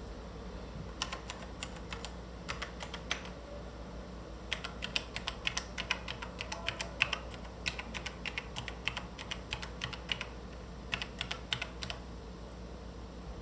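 Logitech G Pro mechanical gaming keyboard being typed on: irregular bursts of key clicks with short pauses, the longest and densest run in the middle, stopping about a second before the end.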